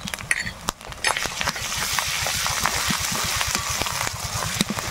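Onions and spices frying in hot oil in a metal kadai. The sizzle swells about a second in as a wet cumin-and-coriander paste is stirred in. A metal spatula scrapes and clicks against the pan.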